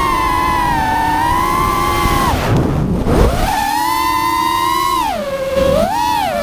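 Brushless motors on a 5-inch FPV quadcopter (Rotorgeeks 2204 2300kv, HQ 5040 three-blade props) give a steady high whine. About two and a half seconds in, the whine drops sharply with a rush of air as the throttle is chopped, then climbs back. It dips twice more near the end.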